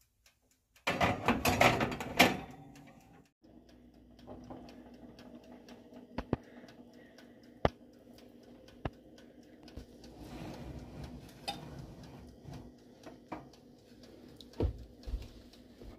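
Metal Bundt cake pan slid onto the wire rack of a countertop electric oven: a short metallic scrape and rattle about a second in. After it, a low steady hum with scattered light clicks and a few soft knocks.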